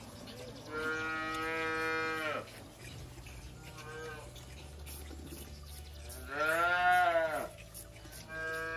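Young dairy calves mooing: four separate calls, a long steady one about a second in, a short one midway, the loudest near seven seconds rising and then falling in pitch, and another starting near the end.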